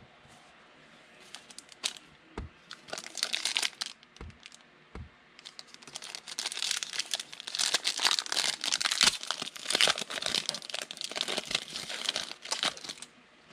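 Foil wrapper of a football trading-card pack crinkling in short bursts as it is handled, then torn open and crinkled almost continuously through the second half.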